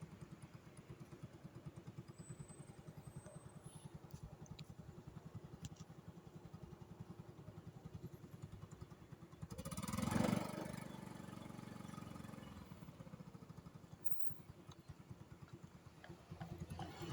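A motor vehicle engine running with a steady low pulse. About ten seconds in, a louder vehicle sound swells up and fades away.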